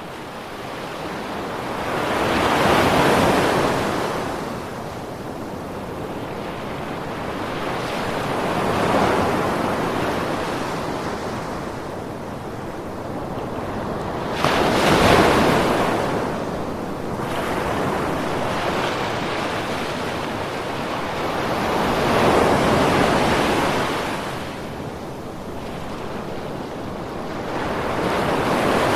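Ocean waves breaking and washing on the shore, the surf swelling and ebbing about every six to seven seconds. One wave breaks more abruptly about halfway through.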